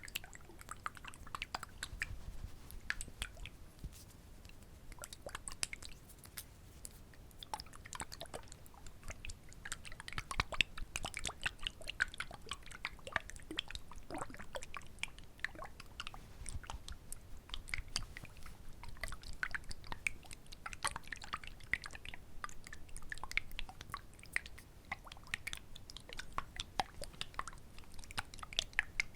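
Close-miked ASMR triggers: a dense, continuous stream of small wet clicks and crackles.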